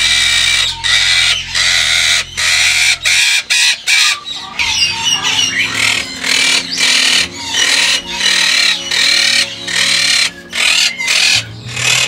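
Monk parakeets screeching continuously: loud, harsh calls repeated in quick succession with only brief breaks, the alarm noise this species makes when someone comes near its cage.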